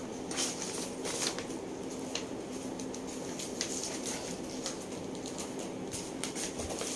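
Faint rustling and light knocks of paper and cardboard packaging being handled, over a steady low hum.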